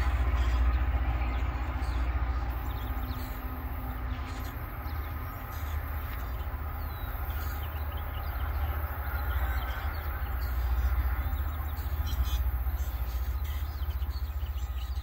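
Rail grinder working the track as it moves away: a steady rumble of grinding and engines with a faint whine. It fades over the first few seconds, then holds at a lower level.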